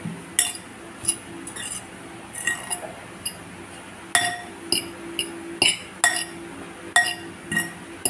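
Metal fork clinking against the side of a bowl while mixing mashed tofu with grated carrot and chopped greens: sharp, briefly ringing clinks at an uneven pace, about one or two a second.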